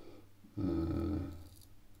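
A man's short, low wordless vocal sound, held at a steady pitch for nearly a second about half a second in. Near the end come faint scratchy strokes of a Drew Dick 8/8 straight razor cutting lathered stubble on the upper lip.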